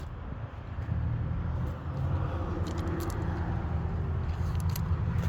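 Steady low rumble of the 2013 Chevy Avalanche's 5.3-litre V8 idling, with a few faint light clicks.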